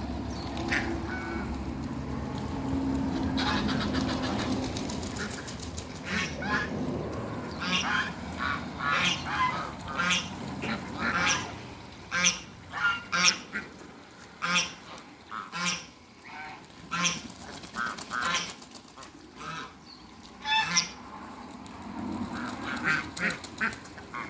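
Domestic waterfowl calling: a long run of short quacking and honking calls, about one or two a second, starting about six seconds in, over a low rumble at first.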